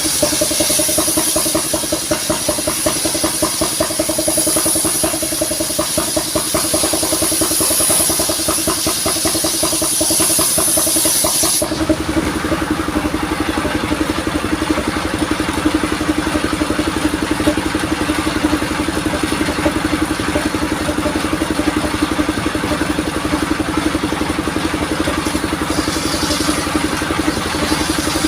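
Engine of a modified saw-rig vehicle running steadily. About twelve seconds in, a high hiss stops abruptly and the low end of the engine sound changes.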